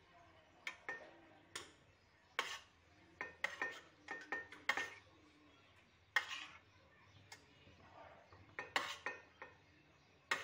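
Steel spoon scraping and knocking against a non-stick pan and the rim of an aluminium pressure cooker while marinated chicken is scooped across: irregular sharp clinks and scrapes, some with a brief metallic ring.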